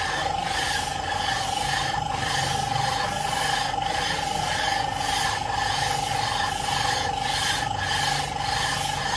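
A heavy round metal plate is rubbed back and forth by hand across the gasket face of a Toyota Corolla GLI cylinder head, making a continuous rasping metal-on-metal scrape with repeated strokes. A steady ringing tone runs under it.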